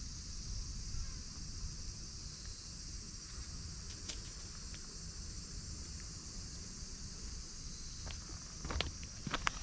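Steady high chirring of crickets, with a low rumble underneath and a few faint clicks near the end.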